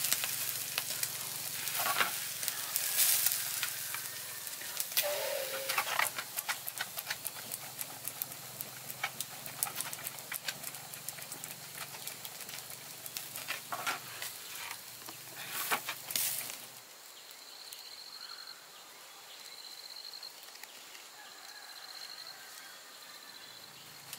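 Food sizzling and crackling over heat, with many small pops. About two-thirds of the way in, it cuts to a quieter background with faint, repeated high chirps.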